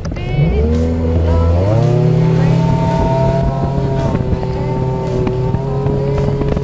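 Bass boat's outboard motor throttling up: its pitch climbs in two steps, then holds a steady high running note as the boat gets under way. Wind buffets the microphone.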